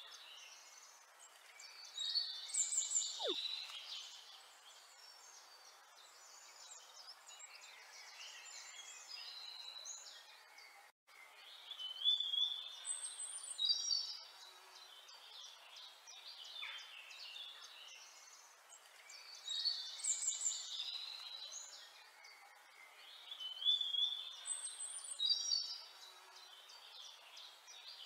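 Birds chirping and singing, in bursts of short high chirps and trills every few seconds, with a brief cut in the sound about eleven seconds in.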